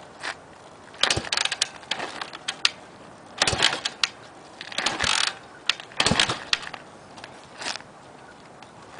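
Honda XL250 single-cylinder four-stroke being kicked over by its kickstarter again and again: a series of metallic clanks and rattles, three heavier strokes about two and a half seconds apart, and the engine never catches. The kicks are short of the full stroke, not started from the very top.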